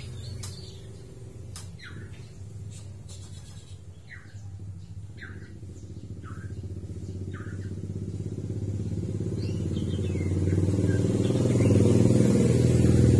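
A motorcycle engine running close by, growing steadily louder through the second half as it approaches. A few short high chirps sound in the first half.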